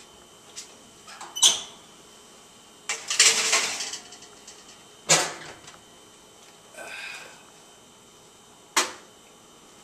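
Oven handling in a kitchen: a sharp clatter, then a longer rattle as a foil-covered baking tray goes into the oven, and the oven door shut with a knock about five seconds in. A fainter squeak follows, then one sharp knock near the end.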